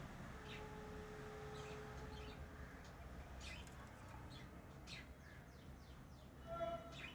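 Pet lovebirds giving short, sharp chirps every second or so, with a quick run of falling chirps about five seconds in and a louder chirp near the end.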